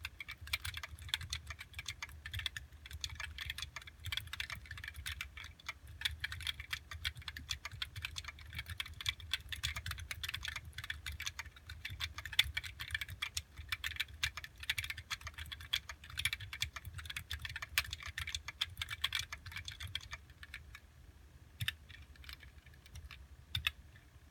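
Fast typing on an OLKB Planck mechanical keyboard with Gateron Yellow linear switches on 78g springs and JTK keycaps: a dense run of keystrokes that stops about 20 seconds in, followed by a few single key presses.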